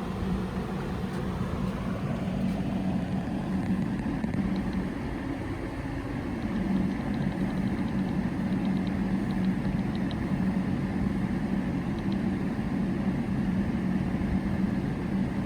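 A car's steady low running hum heard from inside the cabin, with a few faint light ticks in the middle.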